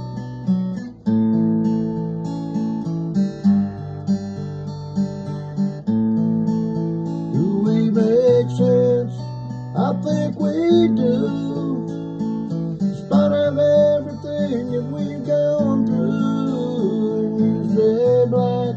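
Acoustic guitar strummed in chords, with a man's voice singing over it from about halfway through.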